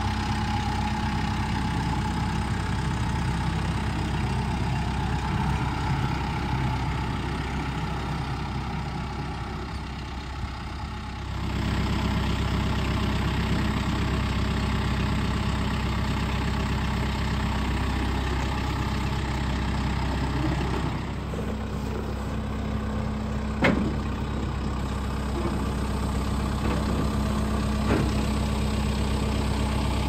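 Kubota tractor's diesel engine running steadily while its front-end loader handles heavy sawmill parts, with two sharp knocks in the second half.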